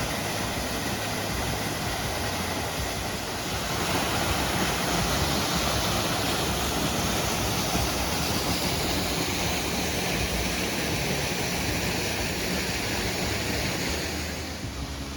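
Steady rush of flowing water from a creek or waterfall, a little louder from about four seconds in.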